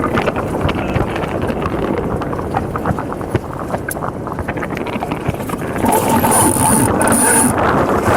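Wind buffeting the microphone and water rushing along the hulls of a Hobie Cat 16 catamaran under sail, a steady dense rush with scattered small knocks. About six seconds in it grows louder, and a thin steady high tone sounds over it for about a second and a half, broken once.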